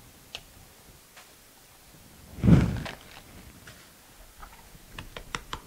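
A dull thump about halfway through, then a quick run of sharp cracks near the end as a thumb is pushed into a green bell pepper to pop its stem and core out.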